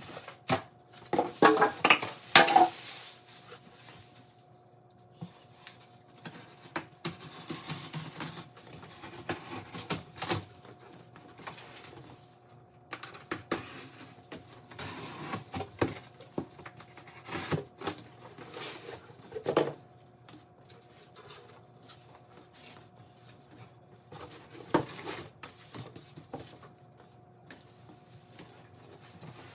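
Cardboard box and plastic packing being handled as a large appliance is unboxed: irregular rustling, crinkling, scraping and knocks, loudest about two seconds in, over a faint steady hum.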